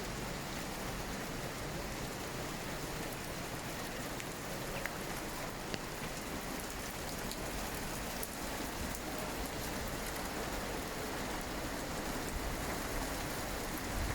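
Storm rain falling steadily, with a few sharp ticks now and then.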